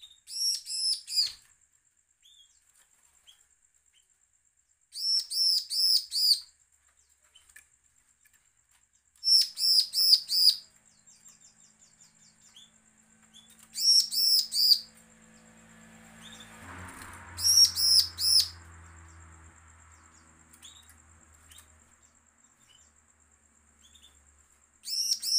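Bar-winged prinia (ciblek) singing: six short bursts of four or five quick, high, repeated notes, a few seconds apart. It is the aggressive, challenging song used as a lure to get other ciblek to sing.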